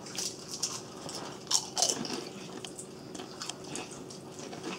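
Someone biting into and chewing potato chips: a run of crisp crunches, the loudest about a second and a half in.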